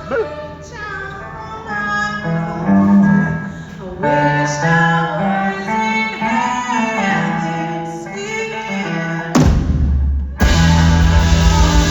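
Live blues-rock band opening a song: sustained, bending vocal and guitar lines over a low drone, then a loud crash about nine seconds in, and the full band with drums and distorted guitar kicking in near the end.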